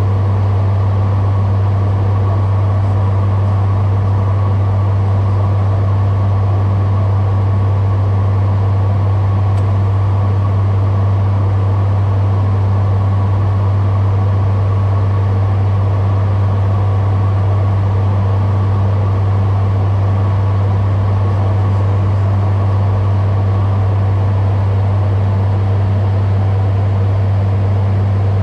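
ATR 72-600 turboprop airliner in flight, heard on its flight deck: a steady, deep drone from its twin Pratt & Whitney PW127 turboprops and propellers, over a wash of airflow noise. It holds unchanged throughout.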